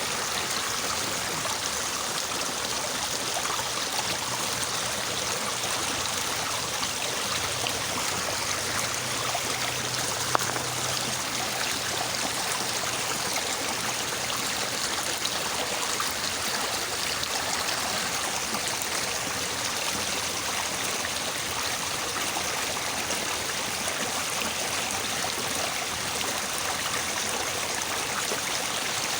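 Small, fairly swift river babbling steadily. A single sharp click about ten seconds in.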